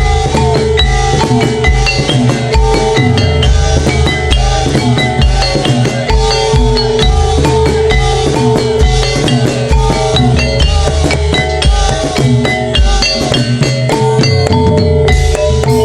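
Javanese gamelan-style accompaniment for a kuda lumping dance: metallophones struck in quick runs over hand drums with bending pitch and heavy low drum beats, with one note held over most of it.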